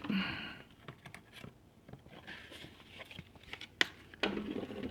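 Handling noise of a metal pocket multi-tool and knives: scattered light clicks and rustles, with one sharper click a little before four seconds in. A brief low murmur of a voice comes near the end.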